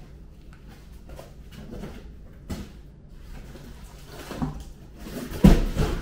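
Unpacking noise: a foam packing insert and a large cardboard box being handled, with rustling and scraping, a knock about two and a half seconds in and the loudest thumps near the end.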